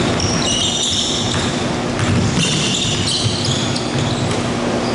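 Basketball being dribbled and sneakers squeaking on a hardwood court during a game, with short high squeaks again and again.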